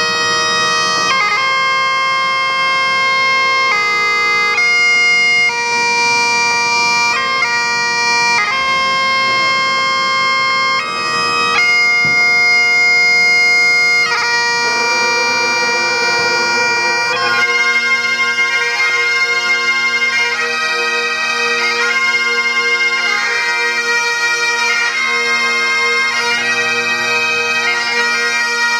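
Great Highland bagpipe playing a slow tune with long held notes over its steady drones. About halfway through, the sound thickens as more pipers join in.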